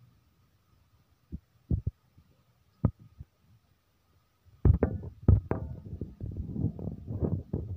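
A few light knocks, then from about halfway through, water poured from above onto a brass idol, splashing over it and onto the steel plate beneath.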